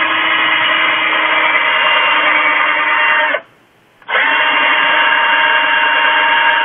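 Electric drill running steadily as it bores out holes in a plastic foot-switch paddle. It stops for about half a second a little after three seconds in, then starts again.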